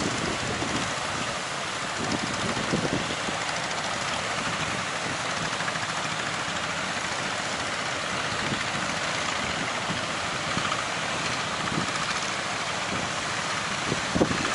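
Fishing boat engine running steadily, under a constant hiss of surf and wind.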